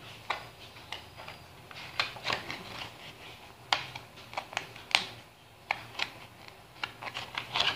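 Thin clear plastic face shield visor handled and picked at with the fingers while its protective film is peeled off: scattered sharp plastic clicks and crackles at irregular intervals, the loudest about five seconds in.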